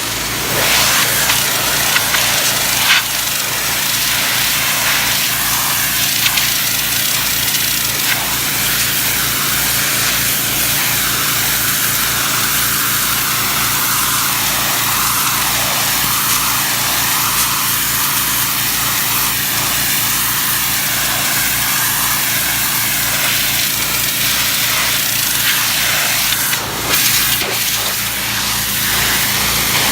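Engine-driven pressure washer running steadily, its wand spraying a high-pressure jet of water against brick with a continuous loud hiss. The loudness dips briefly near the end.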